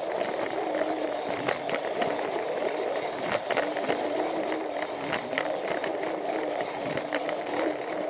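Battery-powered Plarail toy train running: a steady whirring motor and gearbox, with frequent irregular clicks from its wheels on the plastic track.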